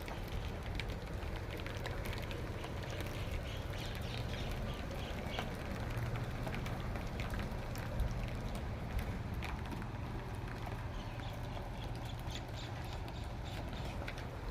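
Rain falling steadily, with many scattered drops ticking sharply on hard surfaces.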